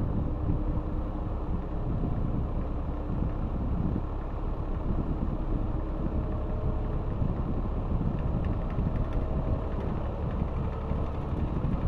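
Vintage Montgomery Ward Signature two-speed metal box fan running on its low speed setting, still slowly working up to speed: a steady rush of moving air with a low rumble and a faint motor hum.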